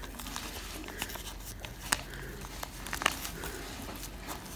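Fingers handling a small plastic Littlest Pet Shop figurine while fitting a tiny fabric skirt onto it: soft rustling with a few small clicks, about two and three seconds in, over a steady low hum.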